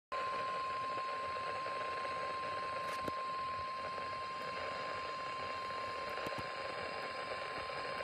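Midland NOAA weather radio sounding the steady 1050 Hz warning alarm tone over a hiss of radio static: the alert signal that comes before a severe thunderstorm warning broadcast.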